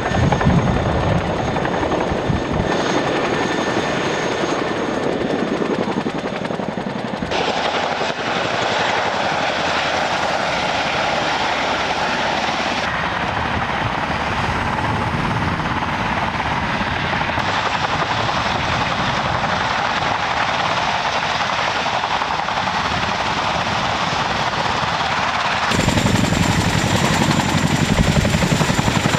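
Boeing CH-47 Chinook tandem-rotor helicopter: the rotors thud rhythmically over a steady high turbine whine. The sound changes abruptly several times, and about 26 seconds in it grows louder and deeper as the helicopter hovers low over the ground.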